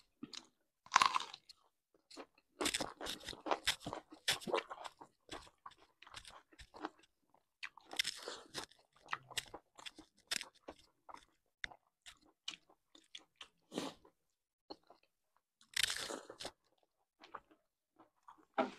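Close-miked chewing and crunching of a hand-eaten meal of pork and rice: wet, crisp mouth clicks in irregular bouts with short pauses between, the busiest stretches about three seconds in, around eight seconds and again near sixteen seconds.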